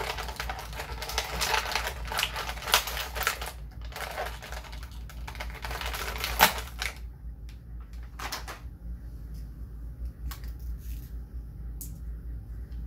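Plastic action-figure packaging crackling and crinkling as the figure is worked out of its tray. The crackling is busy for about the first seven seconds, then quietens to a few scattered clicks.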